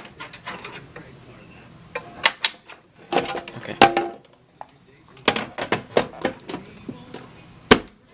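Bunches of quick sharp clicks and knocks, like buttons and knobs on hard-plastic equipment being pressed and handled, separated by short pauses.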